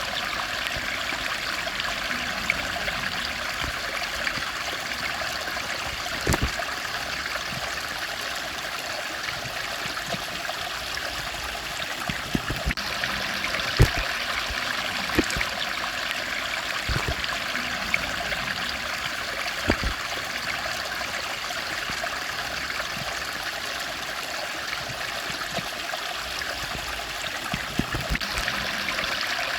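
Steady rushing of a stream, with a few short knocks scattered through it.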